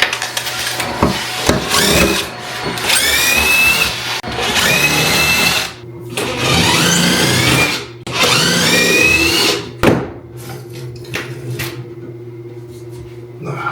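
Power drill running in about five bursts of a couple of seconds each, the motor's whine rising in pitch within each burst, then stopping about ten seconds in.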